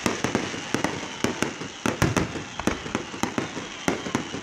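Fireworks display: aerial shells and crackling stars going off in quick, irregular succession, sharp bangs about three or four a second over a steady hiss.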